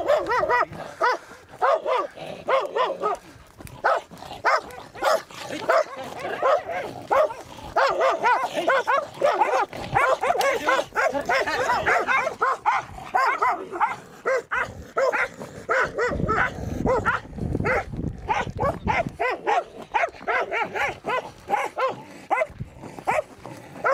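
Dogs barking in short, rapid barks, several a second, almost without pause; the barking is densest about a third of the way in.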